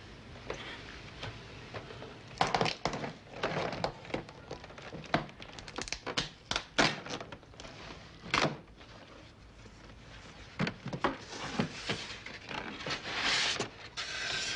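A cardboard box being opened and unpacked: a quick run of rips, crinkles and knocks from the cardboard, then polystyrene packing blocks being handled around a television near the end.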